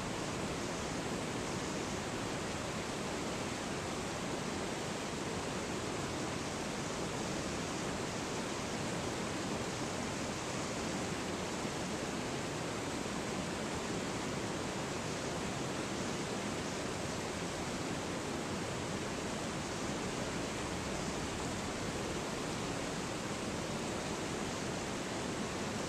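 Whitewater river rapids rushing, a steady even noise of water with no breaks.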